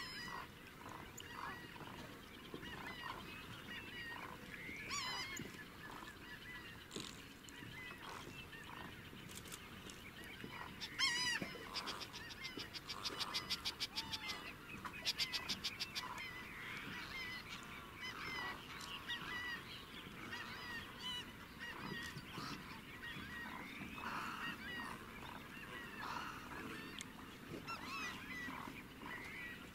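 Many wetland birds calling over a swamp at dawn, a dense mix of overlapping calls. About eleven seconds in, a louder, fast rattling run of notes goes on for several seconds.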